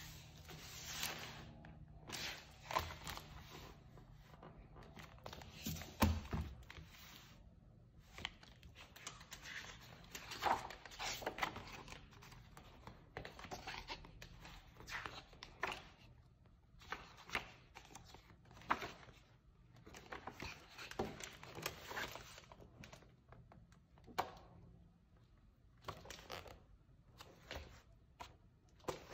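Pages of a large hardcover art book being turned by hand: repeated paper rustling and swishing, one page or bunch of pages at a time, with a soft thump about six seconds in.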